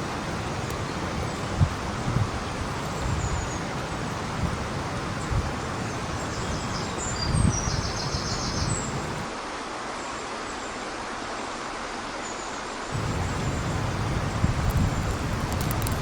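Wind buffeting the microphone over a steady rushing outdoor hiss, with a few faint high chirps around the middle.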